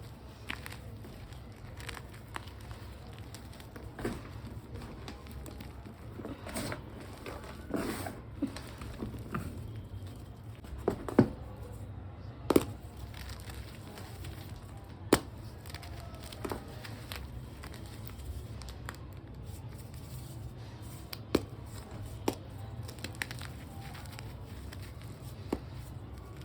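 Reformed gym chalk blocks being crushed and broken, with scattered crunches and crackles and a handful of sharp snaps, the loudest about halfway through. A steady low hum runs underneath.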